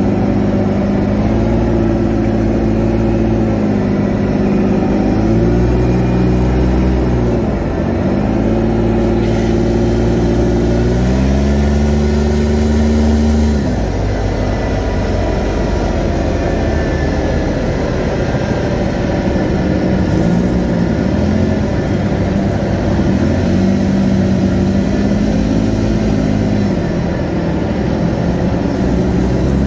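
Polaris side-by-side's engine running on the move, its pitch climbing and falling repeatedly as the throttle is worked, with a steady rush of wind and road noise. The engine note drops sharply about halfway through, then rises and falls again near the end.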